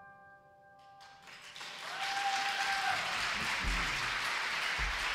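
The last sustained piano notes ring out and die away, then a concert audience breaks into applause about a second in, building quickly and holding steady. A voice calls out once briefly above the clapping.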